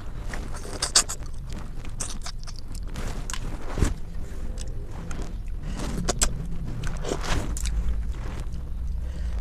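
Close-miked eating sounds: chewing with scattered sharp clicks and smacks, over a low steady hum.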